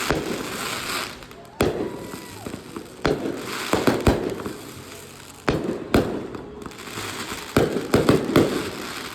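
Aerial fireworks bursting overhead: about six sharp bangs a second or two apart, each trailing off in crackle.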